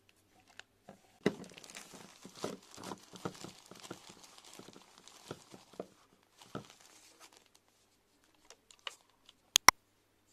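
Thin plastic gloves and plastic wrapping crinkling and rustling in irregular bursts as gloved hands handle a hair-dye bottle, dying away about seven seconds in. Two sharp clicks near the end are the loudest sounds.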